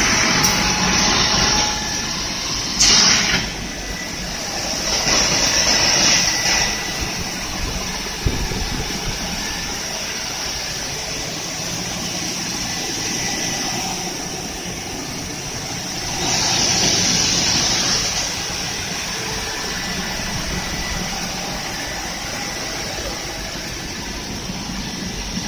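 Three-head wide belt sander running with a steady hum, rising to louder stretches of hiss about three seconds in, around five to six seconds, and again around sixteen to eighteen seconds.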